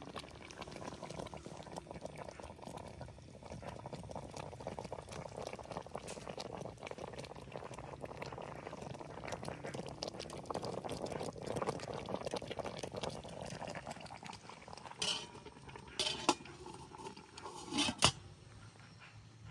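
Food bubbling at a boil in a cooking pot, a steady crackly bubbling, with three sharp clinks of metal utensils or a lid against the pot near the end.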